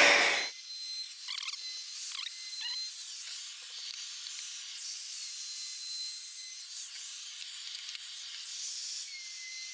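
Handheld router running, which cuts off abruptly about half a second in. After that there is only a steady faint high hiss with a few faint chirps.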